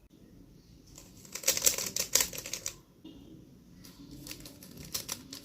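3x3 Rubik's cube being turned by hand, a quick run of plastic clicks and clacks about one and a half seconds in, then a few scattered clicks near the end.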